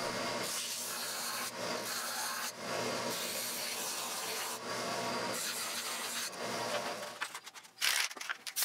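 Ridgid oscillating edge belt sander running with a wooden lid piece pressed against its belt to take off bandsaw marks. The sanding hiss swells and eases as the piece is worked. The sanding ends about seven seconds in, and a few light clicks follow.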